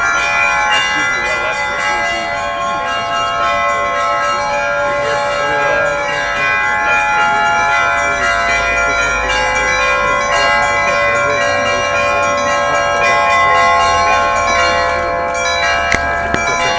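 Russian Orthodox trezvon: several church bells hung on a portable belfry, rung together in a continuous peal with many ringing tones overlapping. A short click comes near the end.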